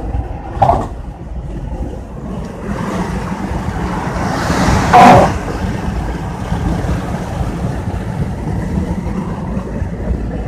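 Steady road and engine rumble of a car driving at speed, heard from inside the cabin. There is a short sharp sound under a second in and a brief loud rush about five seconds in.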